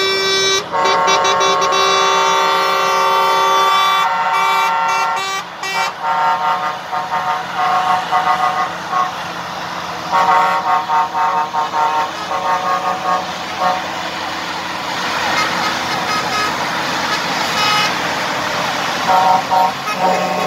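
Heavy-haul trucks sounding their air horns in a horn show: a long held blast over the first few seconds, then a string of short honks. After that comes the steady noise of the convoy's engines and tyres passing, with a few more honks near the end.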